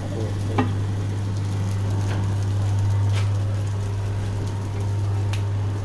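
Automatic coffee powder pouch packing machine running: a steady low hum with short sharp clicks about once a second.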